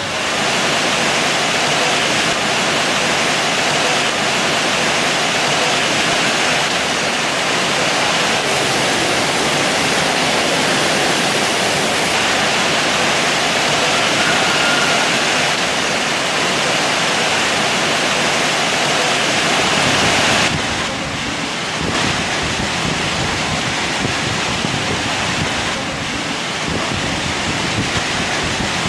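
Heavy rain falling: a dense, steady rushing hiss that changes in tone about twenty seconds in.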